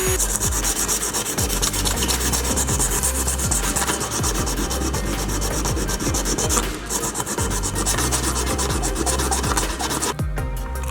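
Sanding a small model car: rapid, rhythmic back-and-forth rubbing strokes, with a brief pause about two-thirds of the way through.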